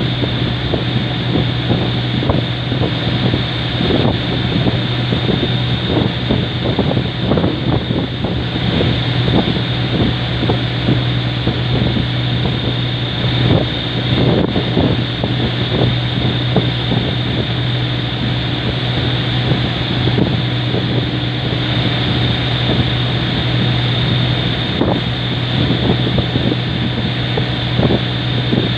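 Boat engine running steadily with a constant low hum, while wind buffets the microphone in irregular gusts.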